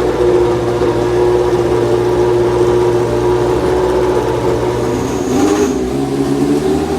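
Benetton B190 Formula One car's Ford Cosworth V8 running loudly and steadily, its note shifting to a different pitch about five seconds in.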